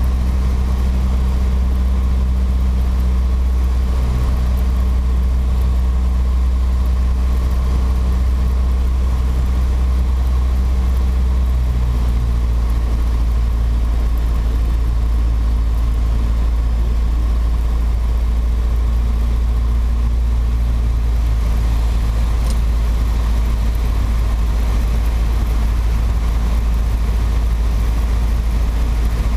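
Piper PA-28-140 Cherokee's four-cylinder Lycoming O-320 engine and propeller droning steadily in cruise, heard inside the cockpit. The low pitch of the drone shifts slightly about twelve seconds in, a small change in engine speed.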